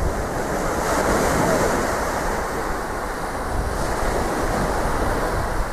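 Surf breaking and washing up a sandy beach, with strong wind buffeting the microphone.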